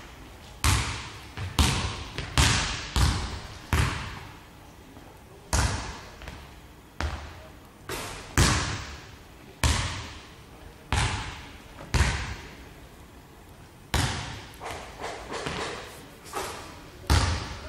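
Basketball bouncing on a hardwood sports-hall floor: single echoing bounces about a second apart, with a few longer pauses.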